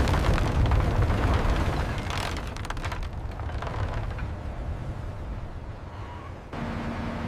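A deep, loud rumble with crackling that fades over about six seconds, then cuts off abruptly to a steadier, quieter noise with a faint steady low hum.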